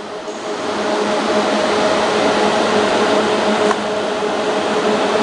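Three-head flat labeling machine running with its vacuum-belt suction blower: a steady rush of air with a hum of a few steady tones. A single short click about three and a half seconds in.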